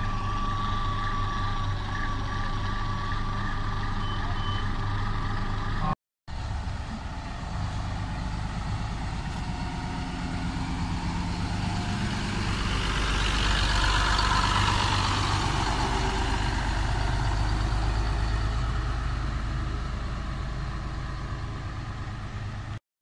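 Bus diesel engine idling with a steady high whine over it. After a cut, a vintage bus's diesel engine pulls away and drives past, loudest about halfway through, then slowly fades as it drives off.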